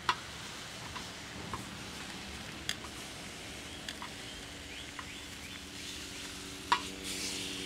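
Ribs sizzling on the hot steel disc of a plow-disc cooker, with metal tongs clicking against the pan now and then as the ribs are pushed around; the sharpest clack comes near the end, as the sizzle grows brighter.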